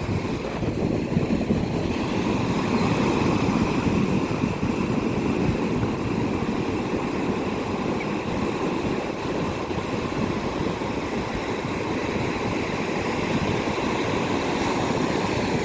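Ocean surf washing up the beach, a steady rush of waves with wind buffeting the microphone.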